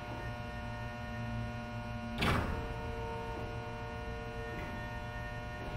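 Steady electric hum of a small electric shunting locomotive standing, with a single sharp clunk about two seconds in.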